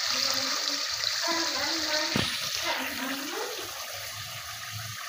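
Steady hissing rush from a pot of chicken karahi frying on a gas ring burner, the oil separated from the masala in the final frying-down stage; the hiss eases about three seconds in. A single sharp knock about two seconds in.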